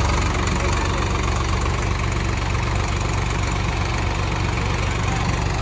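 Tractor diesel engine idling steadily, with a low, even beat.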